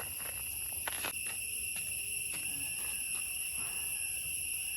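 Steady insect chorus of high, even, continuous tones, with a couple of faint clicks about a second in.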